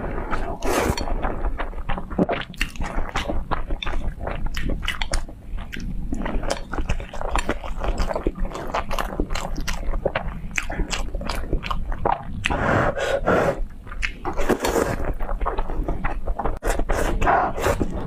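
A person slurping and chewing instant noodles, with wet eating sounds throughout and a few longer, louder slurps in the second half.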